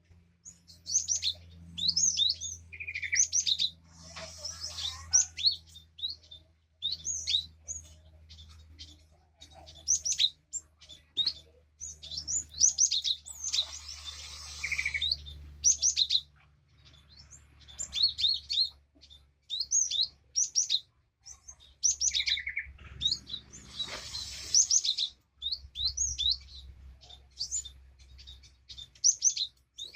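Cinereous tit (glatik batu) calling: a rapid run of sharp chirps and short whistled notes, broken three times by a harsh rasping call, over a steady low hum.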